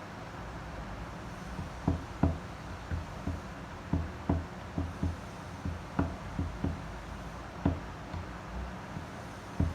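Mondial Maxi Power 40 six-blade electric fan running with a steady whir. From about two seconds in, irregular low thumps are heard.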